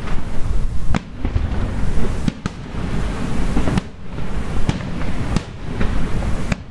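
Fireworks display: aerial shells bursting in a string of sharp bangs about a second apart, over a continuous rumble and crackle.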